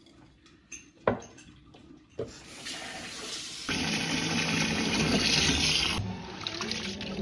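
A sharp knock about a second in, then water running, starting about two seconds in, growing much stronger and easing off near the end.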